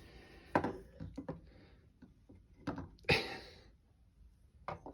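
Several sharp clicks and a short scrape of pocketknives being handled.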